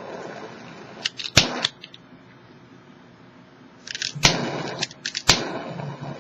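Butane lighter being worked: sharp ignition clicks, a couple about a second in and more at about four and five seconds in, with a short hiss of flame after the clicks.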